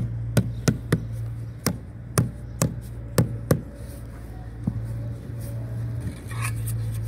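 Rubber mallet knocking on a precast concrete kerb stone, about eight sharp, irregular knocks, most of them in the first half, over a steady low hum. The kerb is being tapped down to line and level.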